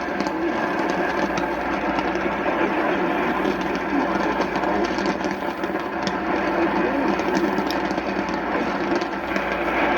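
Radio receiver on a weakly received station: a steady hiss of static, with the broadcast faint beneath it.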